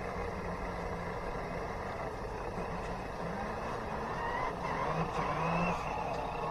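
Radio-controlled amphibious model truck driving over wet sand, its motor and drivetrain giving a steady whine that rises in pitch for a moment about halfway through.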